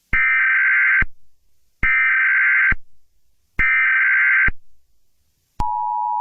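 Emergency Alert System SAME header: three bursts of digital data tones, each just under a second long with short gaps between them. Then, near the end, the steady two-tone EAS attention signal starts, marking the start of an emergency alert.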